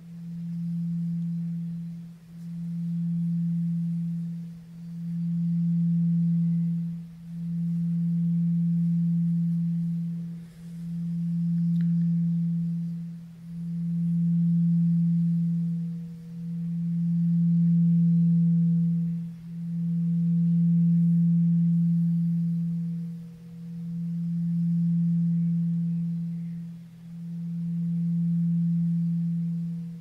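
Tibetan singing bowl tuned to E (MI, 164 Hz), sounding one low sustained tone with a faint higher overtone. The tone swells and fades about every three seconds, dipping almost away between swells.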